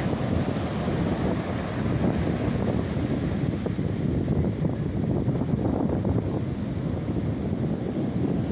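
Strong wind buffeting the microphone over the steady rush of large surf breaking on the shore.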